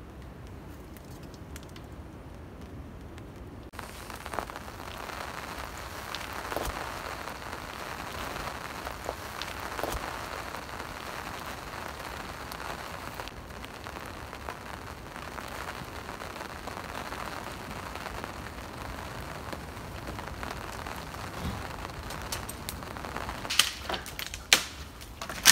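Rain pattering steadily, quieter for the first few seconds and then louder and denser. A few sharp snaps near the end.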